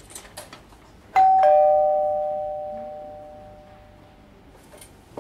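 Two-note ding-dong chime of a queue number-calling system, a higher note followed a moment later by a lower one, both ringing and slowly fading over about three seconds: the signal that the next ticket number is being called.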